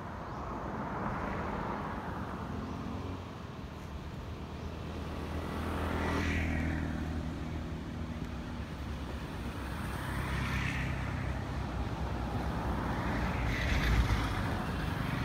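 Motor vehicles passing one after another, about four in turn, each swelling and fading, with a low engine hum under the middle ones. A low bump near the end.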